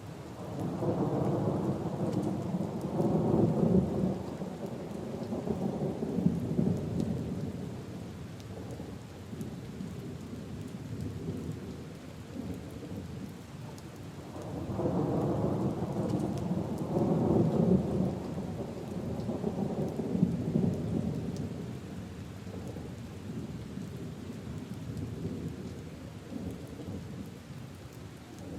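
Steady rain falling on puddles and leaves, with two long rolls of thunder: one starting right away and a second about halfway through, each rumbling for several seconds before fading back into the rain.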